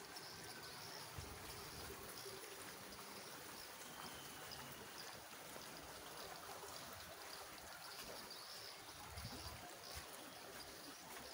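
Faint, steady trickle of spring water running down a small concrete channel beside the path, with a short high chirp repeating throughout.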